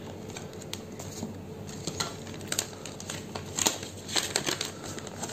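Paper rustling and crinkling with scattered light clicks, as the pages of a printed instruction booklet are handled and turned.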